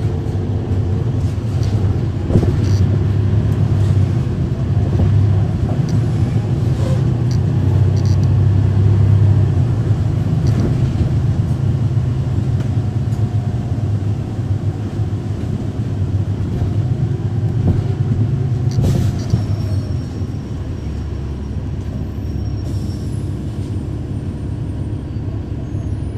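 Inside a 2012 NABI 40-SFW transit bus under way, with its Cummins ISL9 diesel engine running as a steady low rumble, the climate system off. The rumble builds toward the middle, a sharp knock comes a little before twenty seconds in, and then the engine runs quieter.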